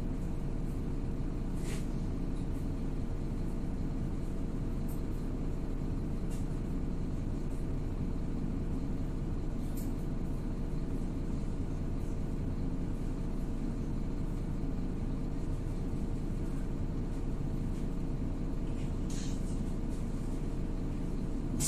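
MAZ-103 city bus driving at steady speed, heard from inside the passenger cabin: an even engine and road rumble with a constant whine running under it, and a few faint rattles.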